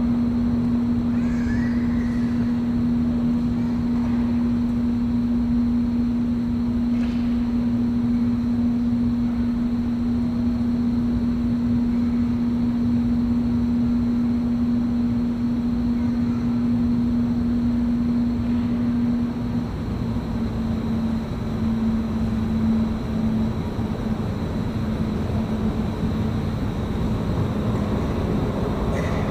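A steady machine drone with a constant low hum over a broad rumble. About two-thirds of the way through, the hum wavers and shifts slightly in pitch.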